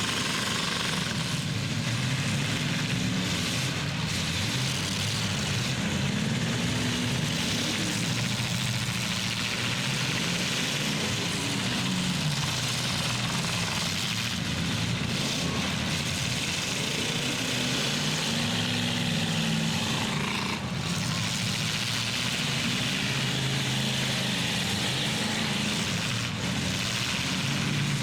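Engines of demolition-derby trucks and SUVs running and revving up and down as they manoeuvre in the arena, over a steady outdoor noise.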